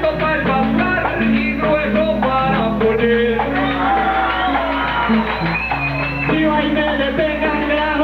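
Trova paisa accompaniment: strummed guitar with a guacharaca scraper keeping a steady rhythm, playing the instrumental interlude between sung verses.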